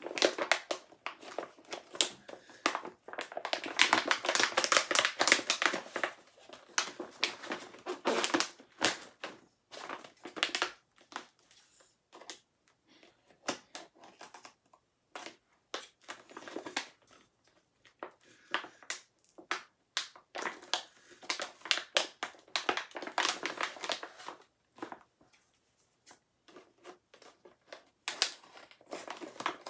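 Hands tearing and crumpling the wrapping of a toy surprise: irregular crinkling and crackling in spurts, busiest a few seconds in and again past the twenty-second mark, with quieter gaps between.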